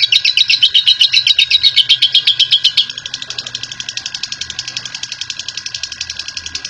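Lovebird in a long 'ngekek' chatter: an unbroken run of sharp, high chirps at about ten a second. About three seconds in the level drops abruptly and the chattering carries on at the same fast pace, with a faint steady high tone underneath.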